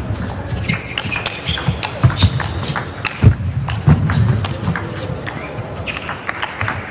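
Table tennis rally: the ball clicks sharply off the bats and the table many times in quick, irregular succession, over a low background noise.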